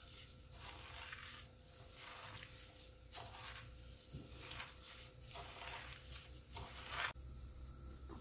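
Gloved hand kneading raw ground beef with dry seasonings, giving wet squishes and the crinkle of a thin disposable plastic glove with each squeeze, one or two squeezes a second. The sound stops abruptly near the end.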